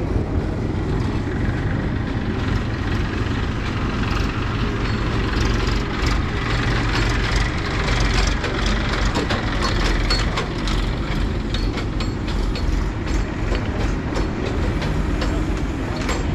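Backhoe loader's diesel engine running steadily at work, with frequent clanks and rattles from the machine and its bucket.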